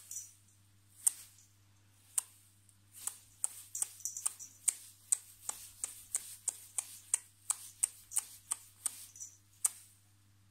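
A run of sharp, dry clicks made off-camera to hold the kittens' attention. They come about once a second at first, then quicken to about three a second from about three seconds in.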